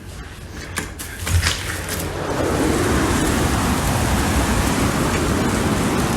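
Thunderstorm wind and rain: a steady rushing noise that builds up over the first couple of seconds and then holds.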